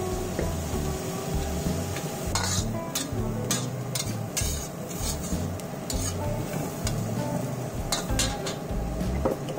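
Metal spatula scraping and clanking against a wok as prawns and vegetables are stir-fried, with a sizzle underneath. The strokes come about twice a second from about two seconds in, then a few more near the end.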